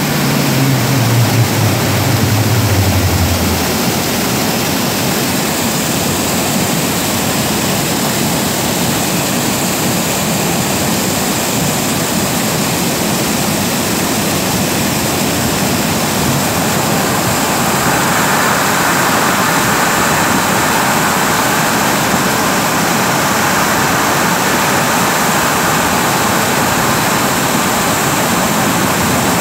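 Torrent of muddy water pouring from a drainage pumping station's outlet pipes, past their flap gates, into the channel below: a loud, steady rush. In the first few seconds a low hum falls in pitch and stops.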